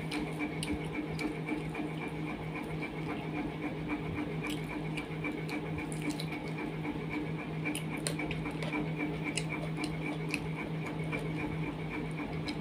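Close-up eating by hand: soft squelching of fingers mixing rice and curry, and scattered clicks of chewing. Underneath runs a steady, slightly pulsing mechanical hum.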